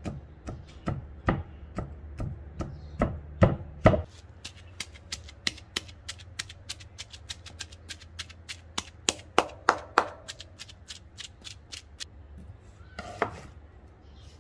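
Knife chopping food on a cutting board: a few slower, heavier chops at first, then a quicker run of lighter chops at about three or four a second, ending with a short clatter near the end.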